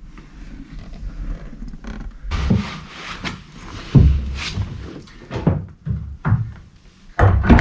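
Several short knocks and clunks, the loudest about four seconds in, as a removed quick-release steering wheel is handled against its 3D-printed hook inside a car's cabin.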